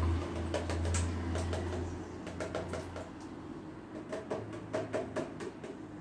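Boiled pumpkin chunks dropping and being knocked out of a container into a blender jar: a string of light taps and clatters in two bursts, over a low hum that fades about two seconds in.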